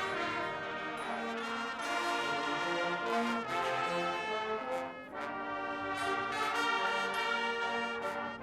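A Guggenmusik carnival band playing: trumpets and trombones blaring sustained chords and changing notes together, with a brief dip about five seconds in before the next phrase.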